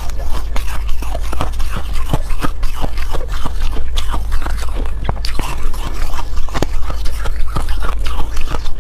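Foam ice being chewed: a rapid, irregular run of crunching and crackling as a mouthful of frozen ice breaks up between the teeth, over a steady low hum.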